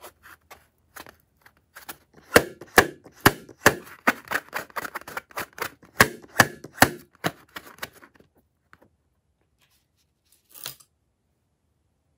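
Fingers tapping and handling a filled latex balloon: an irregular run of sharp taps and clicks for several seconds. One short rasp follows near the end.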